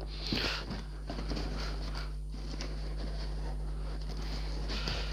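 Faint rustling and scraping of a cardboard model-kit box lid being handled, over a steady low electrical hum.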